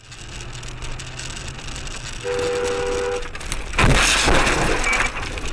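Road noise from a moving car, then a two-note car horn sounding for about a second, followed shortly after by a loud noisy burst lasting about a second, the loudest sound here.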